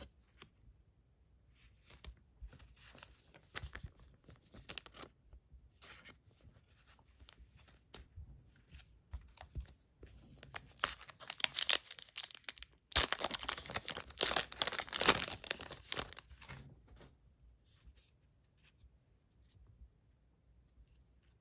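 Foil booster pack wrapper torn open and crinkled by hand, loudest in a long crackling stretch from about ten to sixteen seconds in, after softer scattered rustling.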